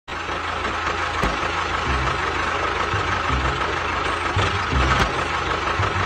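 Tractor engine running steadily, a constant whine over an uneven low chugging, with two sharp clicks, one about a second in and one near the end.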